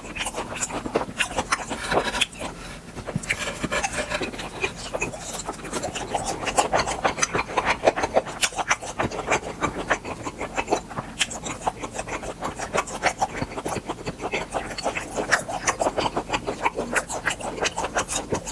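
Close-miked chewing of grilled beef tripe: continuous rapid wet clicks and smacks of a mouth working on chewy meat.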